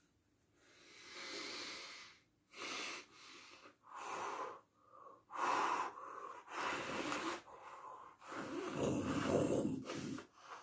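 A man blowing his nose into a napkin held over his face: a string of about ten noisy blows and snorts, the longest and loudest near the end.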